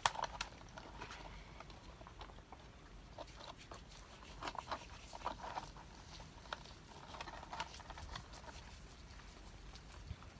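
A puppy being bathed in a plastic basin: faint scattered splashes and handling noises, with a few short whimpers in clusters near the middle and a little later.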